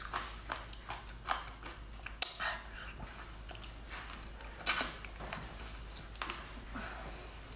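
Wet mouth sounds of someone eating raw sea cucumber dressed in chili oil: chewing, smacking and sucking at a piece held to the mouth. It comes as a run of short wet clicks, with two louder smacks about two and about five seconds in.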